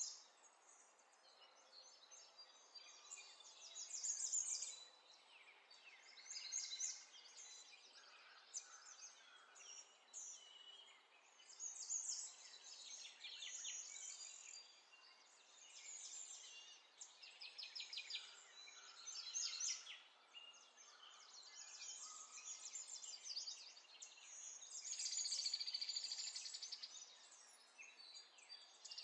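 Faint chirping and trilling of small birds, in short bouts every second or two, over a low hiss.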